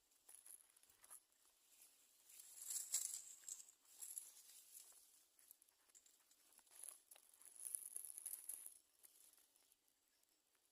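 Society finches moving about in their nest: faint rustling and scratching of nesting material with thin, high-pitched peeps, loudest about three seconds in and again around eight seconds.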